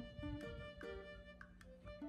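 Quiet background music: short, separate string-instrument notes over a held tone, with a few soft low thumps near the start.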